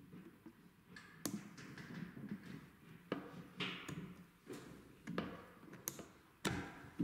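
Rear receiver pins of a Heckler & Koch G41 rifle being pushed out by hand: about five sharp clicks and taps of metal and plastic parts, spread over several seconds, with faint handling noise between them.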